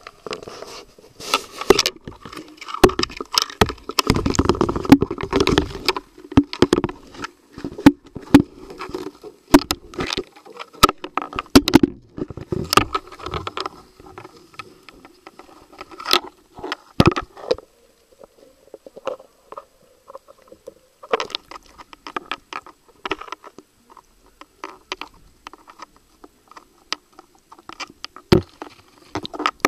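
Irregular rubbing, scraping and clicking of small objects against the camera and its microphone, dense for the first half and sparser from about two-thirds in.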